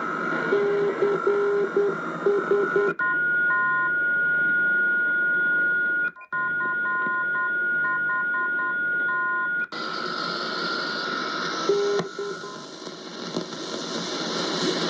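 Yaesu FRG-8800 communications receiver tuned across the longwave band: static and hiss with steady heterodyne whistles and short, irregular beeping tones. The sound changes abruptly a few times as it jumps between signals.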